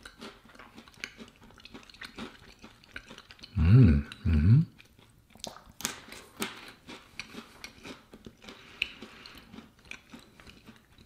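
Crunching and chewing of a chocolate-and-almond-coated Pocky Almond Crush biscuit stick, a steady run of small crisp crunches. Two brief hums of a person's voice stand out about four seconds in.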